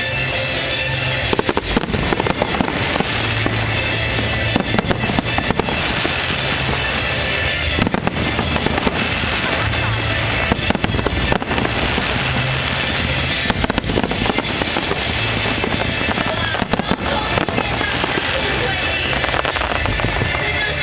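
Fireworks display going off continuously, with repeated bangs and crackling bursts, over loud background music with a steady bass.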